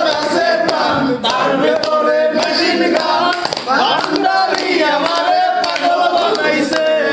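A group of men singing together without instruments, several voices at once, with hand claps throughout.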